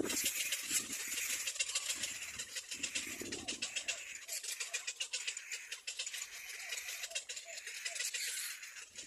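Little black cormorants calling at the nest: a fast rattling chatter throughout, with short soft calls from about four to eight seconds in.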